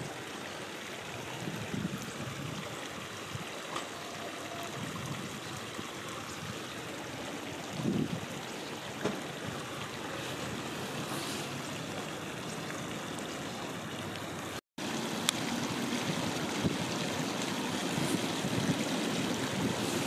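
Steady rush of flowing river water, with a brief dropout about two-thirds of the way through.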